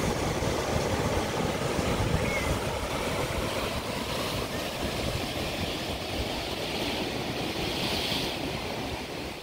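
Ocean surf washing over the shallows, with wind rumbling on the microphone. The wash eases a little in the second half.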